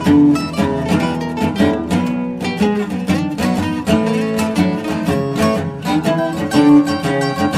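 Background music: acoustic guitar playing a quick run of plucked and strummed notes.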